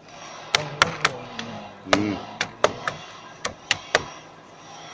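Sharp clacks and taps of a CNC-routed aluminium-plastic composite sheet being lifted off the router bed, its loose cut-out pieces knocking together: about a dozen clacks, the loudest about two seconds in, followed by a short wobbling tone as the sheet flexes.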